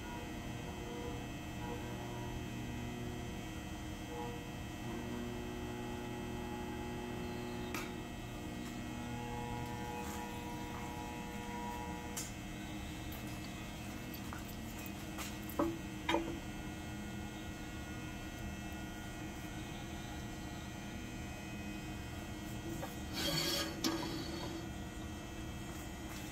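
Large wood lathe running with a steady electric hum while a big maple blank turns, with a few sharp knocks along the way, the loudest a pair about halfway through.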